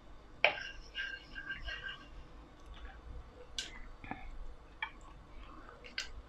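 A wooden spoon knocking and scraping against a pot while pieces of meat are put in and moved around, with a sharp knock about half a second in as the loudest sound, then scattered clicks.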